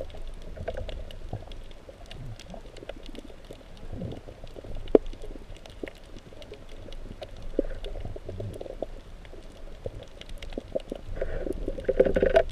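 Underwater sound picked up through a GoPro Hero3+ waterproof housing: a steady low noise of moving water, with scattered faint crackling clicks and one sharper click about halfway through. It grows louder near the end.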